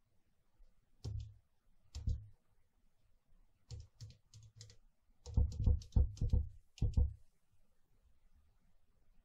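Mute buttons on a Behringer Eurorack mixer pressed one after another, each giving a sharp click with a soft thump, as the switches are checked after repair. Single presses come first, then a quicker run of about eight clicks near the middle.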